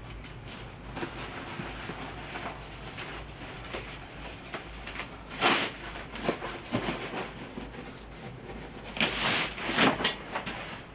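Rustling and scuffing of a nylon dry bag and bedroll fabric being handled and moved, with louder bursts of rustle about five and a half seconds in and again at nine to ten seconds.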